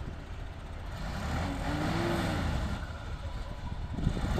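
Loaded Mercedes-Benz dump truck's diesel engine revving, its pitch rising and falling once about a second and a half in, as the truck tries to pull out while bogged down in sand with its rear wheels sunk.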